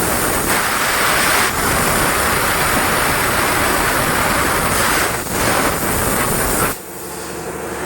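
CNC plasma cutter's torch cutting steel plate: a loud, steady hiss that stops suddenly about seven seconds in.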